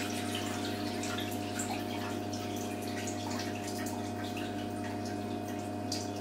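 Water dripping and trickling in a mop bucket, light irregular drips over a steady low hum.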